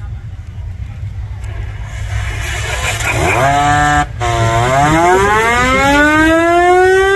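Steam whistle blown twice over a steady low rumble: a short blast about three seconds in, then, after a brief break, a longer blast whose pitch slides slowly upward as it sounds.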